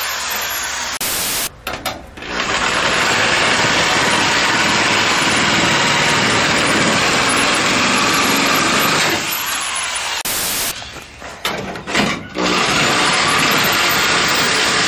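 Small cordless cut-off tool with a cutting wheel slicing through the steel sheet metal of a 1967 VW Bus's front nose panel: a steady, high-pitched whine. It stops briefly about a second and a half in, and again for about three seconds around ten seconds in, with a few light knocks, before cutting resumes.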